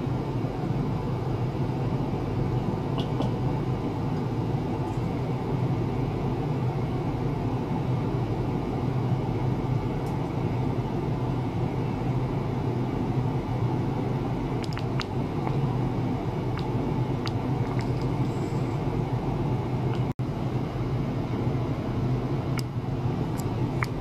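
Steady low hum with hiss from an ultrasonic test rig: transducers driven in a plastic tank of water, with a few faint clicks. The sound drops out for a split second about twenty seconds in.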